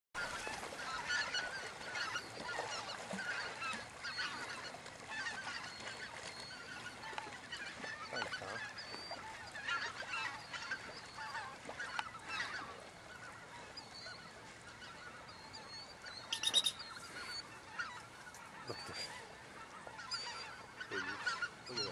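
A flock of geese calling continuously, many short honks overlapping, with one louder call about 16 seconds in.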